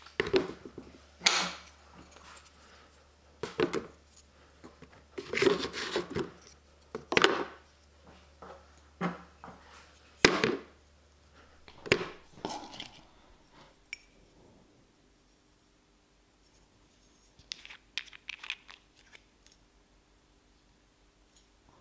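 Small oak blocks set down one by one into a plastic bucket, each a knock with a hollow plastic ring, about a dozen over the first half. Then much quieter, with a short run of small clicks and crackles as the screw cap of a brown glass bottle is twisted open.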